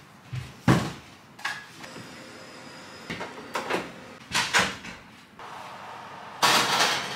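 Kitchen handling sounds: a few separate knocks and clatters as toppings and a wooden chopping board are handled over a ceramic baking dish, then a louder, longer clatter near the end as the dish goes into the oven.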